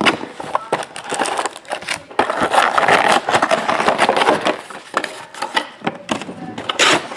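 A cardboard trading-card hobby box being opened and handled, with a foil-wrapped card pack crinkling and rustling. There is a louder crinkle near the end.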